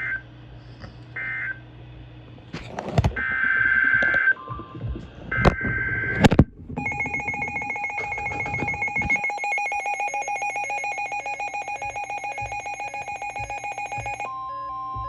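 Emergency Alert System data tones: the last short burst of an end-of-message code, then clicks and two longer header bursts of the next alert. About seven seconds in, the EAS attention signal follows, a steady pulsing two-tone alarm that switches to a single higher steady tone just before the end.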